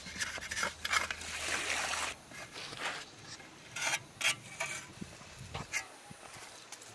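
Trowel scraping and smoothing a mud lining inside the round pot recess of a masonry stove: a longer scrape in the first two seconds, then a series of short, irregular scrapes and pats as the mud is pressed into shape by hand.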